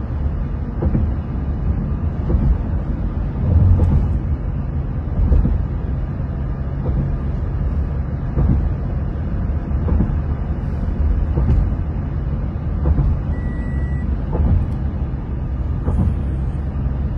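Road noise of a vehicle driving at speed: a steady low rumble of engine and tyres, with a light thud about every second and a half. A short high beep sounds about thirteen seconds in.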